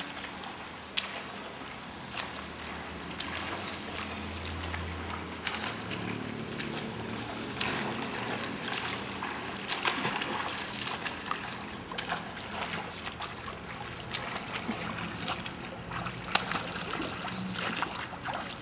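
A swimmer's strokes splashing and sloshing in pool water, with irregular short splashes over a steady wash of water noise.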